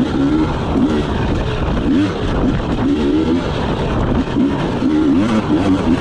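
Enduro dirt bike engine, heard from on the bike, revving up and down over and over as the rider works the throttle along a rough track.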